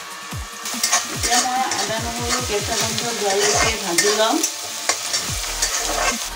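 Chopped onion, chillies and whole spices sizzling in hot mustard oil in a kadai while a spatula stirs them. The sizzle is strongest for the first few seconds and eases near the end.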